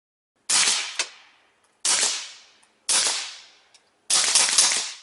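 Four sharp bangs about a second apart, each dying away over about half a second; the last one is longer and rougher.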